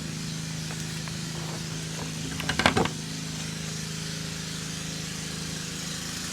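Steady low mechanical hum at an even level, with a short clatter of clicks and knocks about two and a half seconds in.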